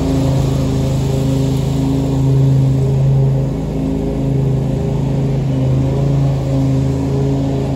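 Kawasaki FR691V V-twin engine of a Toro Titan HD zero-turn mower running steadily under mowing load, its level rising and falling a little as the mower moves around the lawn.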